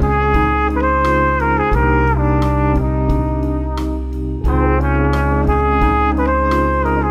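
Brass instrument playing a slurred melody line over a backing track with a bass line and a steady drum beat.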